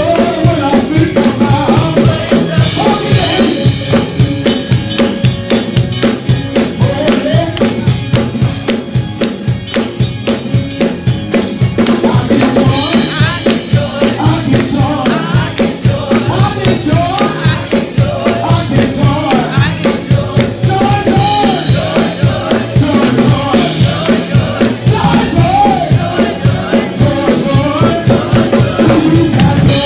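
Lively church praise music: drums and tambourine keep a fast, steady beat while a voice sings into a microphone.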